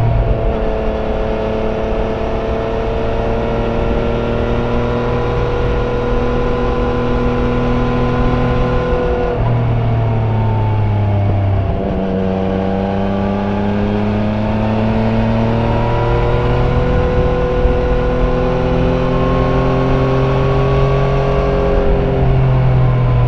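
Yamaha Niken GT's 847 cc three-cylinder engine through its stock exhaust, heard on board while riding. The engine pitch climbs slowly, drops about nine seconds in, climbs again and drops once more near the end.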